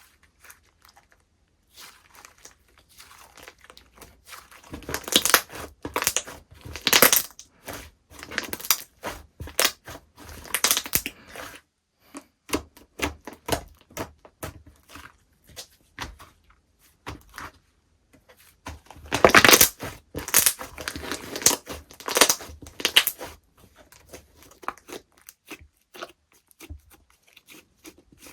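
Slime being pressed, stretched and folded by hand, giving irregular crackling and popping clicks. The sound comes in spells and is loudest about five seconds in and again around twenty seconds in.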